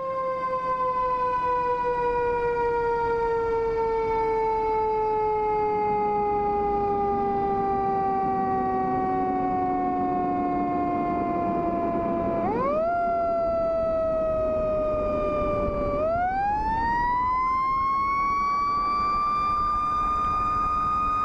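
Fire engine's mechanical siren wailing: the pitch sinks slowly for about twelve seconds, is wound back up sharply twice, about 12 and 16 seconds in, and ends climbing to a steady high wail. The truck's engine runs underneath.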